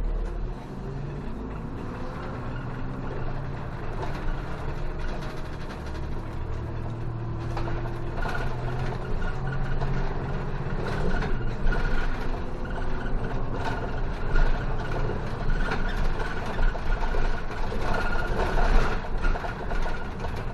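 City bus engine heard from inside the cabin, running as the bus drives along, its pitch rising and falling with the driving. Road noise and light interior rattles run with it, growing louder over the stretch.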